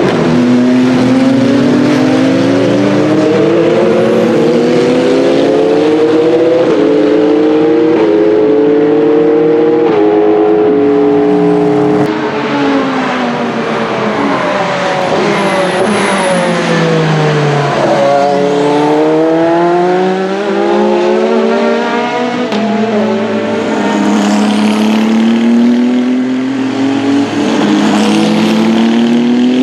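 WEC Hypercar prototype race car engines at high revs. The engine pitch climbs and drops back in steps at each upshift during the first ten seconds, falls away in the middle, then climbs through the gears again near the end.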